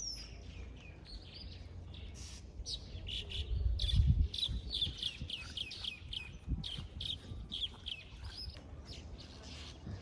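Birds chirping: many short, high, falling chirps repeated over several seconds. A low rumble about four seconds in is the loudest moment.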